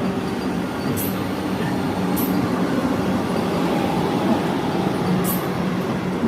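Vande Bharat Express train running with a steady rumble and low hum, broken by three brief high hisses about one, two and five seconds in.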